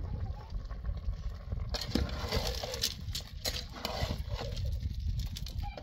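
Metal ladle stirring a steel pot of stew, with irregular clinks and scrapes against the pot starting about two seconds in, over a low steady rumble.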